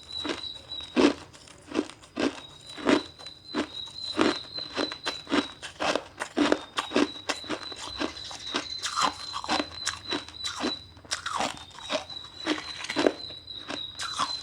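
Ice being bitten and chewed, a long run of crisp crunches at about one to two a second. A steady thin high-pitched whine runs underneath.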